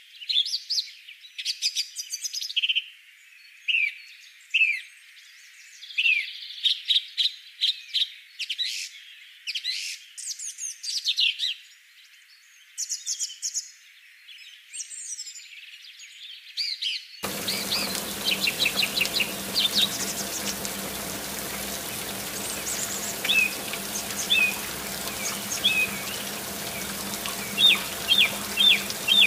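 Birds chirping throughout. About 17 seconds in, a small battery-powered water pump switches on: a steady low hum with the rush of water pouring from a miniature fountain spout into a toy pool.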